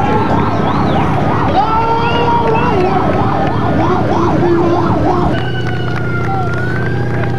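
Emergency-vehicle sirens wailing, breaking into a fast up-and-down yelp for a few seconds. A sudden change about five seconds in leaves a steadier, higher held tone.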